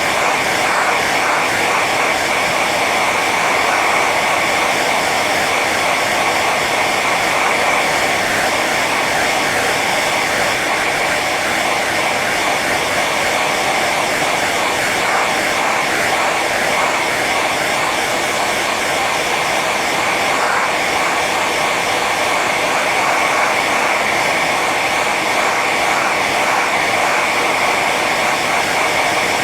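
Hair dryer running continuously on its high setting: a steady rush of blown air with a constant high whine from the motor and fan.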